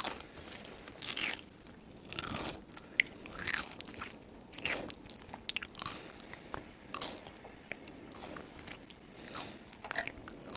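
A person chewing crunchy food close to the microphone, with crisp crunches about once a second.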